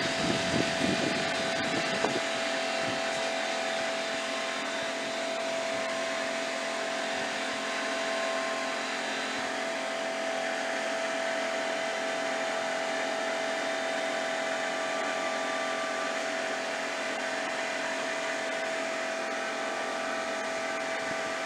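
Air compressor running steadily: a constant motor whine with a hum, unchanging throughout.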